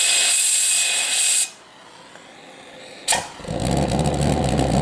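Compressed air hissing through a nozzle into a homemade mason-jar pulse jet, cut off after about a second and a half. After a short lull there is a sharp pop, and the nitro-fuelled jar jet catches and runs with a loud low drone and a fast rattle of pulses.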